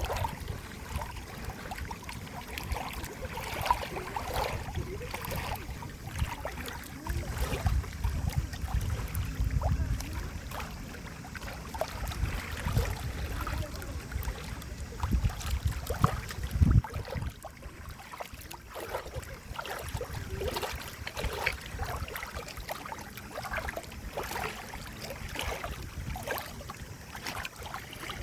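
Water flowing and gurgling, with many small irregular splashes and trickles, and stretches of deeper low rumble in the middle.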